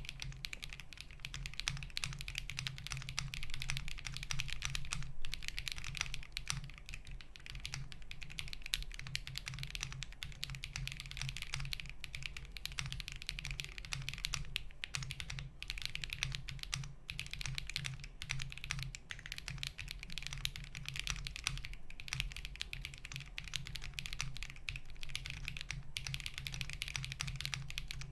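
Continuous fast typing on a Monsgeek M1 75% mechanical keyboard: a dense, even stream of keystrokes with a few short pauses.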